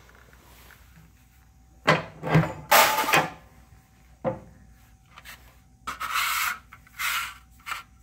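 A sheet of copper being slid, scraped and knocked against the steel bed and clamping bar of a sheet-metal machine as it is lined up square. It comes as a handful of short scrapes and knocks, the loudest a second or two in, with more near the end.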